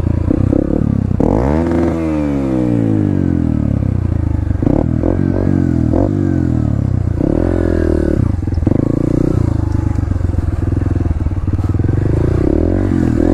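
Dirt bike engine running while being ridden, its pitch climbing sharply about a second in and then falling away, and rising and dropping again several times as the throttle is opened and closed.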